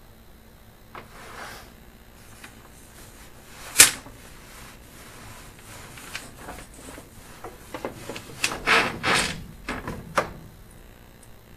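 Handling knocks and clatter: a single sharp knock about four seconds in, then a run of scraping and clattering noises near the end.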